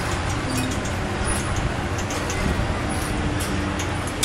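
Steady fairground din heard from high up: a low mechanical rumble of rides and machinery with crowd noise mixed in.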